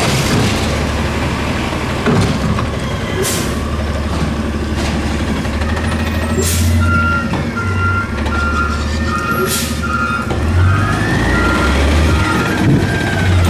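Natural-gas Freightliner M2 garbage truck's engine running as it turns around, with its reversing alarm beeping steadily for several seconds from about halfway through. A few short hisses of air from the brakes.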